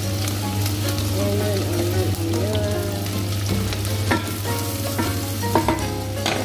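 Diced onion sizzling steadily as it fries in butter in a stainless steel pot, stirred with a wooden spatula. A few sharp knocks of the spatula against the pot come in the last couple of seconds.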